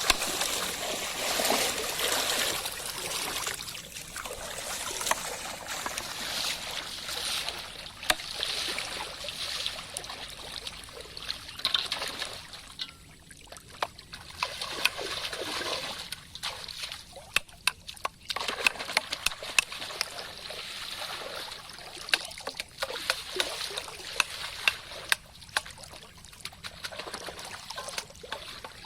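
Shallow water splashing and trickling in uneven spells, dotted with many sharp little splashes and clicks.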